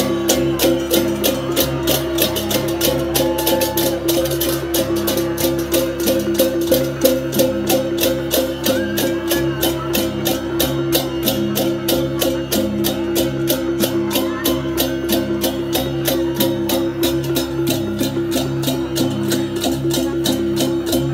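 Loud procession music: a fast, even percussion beat of sharp strokes over a steady held tone.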